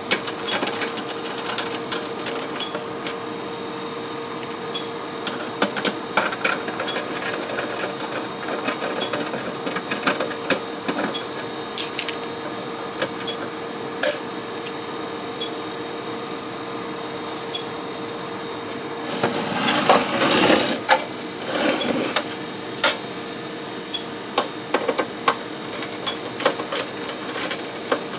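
Screws being backed out of a metal UPS battery case and metal parts handled: scattered sharp clicks and taps, with a louder scraping rattle about two-thirds of the way through, over a steady hum.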